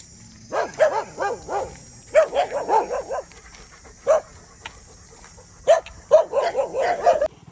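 A dog barking in quick runs of short, high barks, with a single bark between them. A steady high insect drone sits behind it and cuts off near the end.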